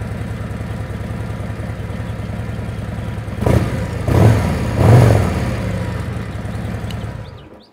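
2024 Harley-Davidson Road Glide's Milwaukee-Eight 117 V-twin idling through Khrome Werks slip-on mufflers with louvered baffles. It is blipped three quick times about three and a half seconds in, settles back to idle, then is switched off and dies away near the end.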